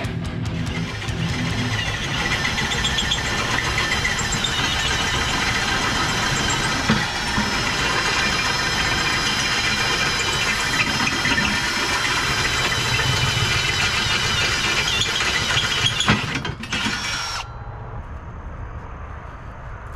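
Angle grinder grinding on steel pipe, a steady hiss with a high whine, which stops near the end. A quieter background with a faint steady high tone follows.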